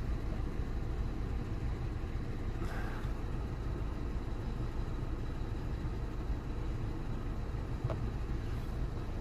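Renault Megane 3's 1.6 K4M four-cylinder petrol engine idling steadily on LPG, heard from inside the cabin. At idle on gas this engine throws a misfire in cylinder 4 and runs rough, a fault that new spark plugs and ignition coils have not cured.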